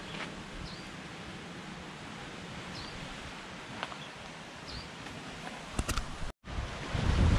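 Steady outdoor ambience with a few short bird chirps, about three spread through the first five seconds, and a couple of light clicks. After a sudden cut near the end, wind on the microphone and the rumble of surf take over, louder.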